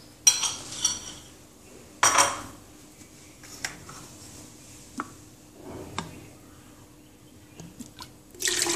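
A utensil scraping and clinking against a saucepan, with two louder scrapes in the first couple of seconds and then a few light clicks. Near the end, vinegar is poured from a cup into the pan in a steady splashing stream.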